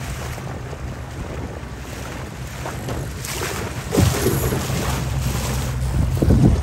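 Wind buffeting the microphone over water rushing past the hull of a sailing dinghy under way, with louder rumbling gusts about four seconds in and again near the end.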